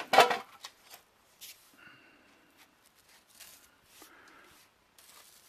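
Handling noise of a hand tool and a plastic pipe being worked together: a sharp clatter just after the start, then scattered clicks, scrapes and rustles.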